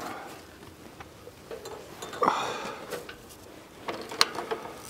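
Scattered light clicks and knocks of things being handled, with a short rustle about two seconds in and a sharper click near the end.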